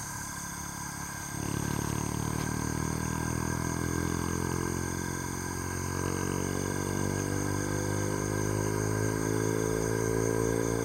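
A motor engine running steadily, its pitch rising slowly over the second half.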